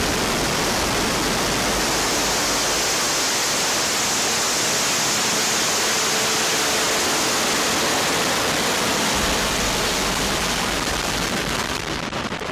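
Soyuz rocket lifting off, its four strap-on boosters and core stage firing together at full thrust: a steady, loud rushing noise that eases slightly near the end as the rocket climbs away.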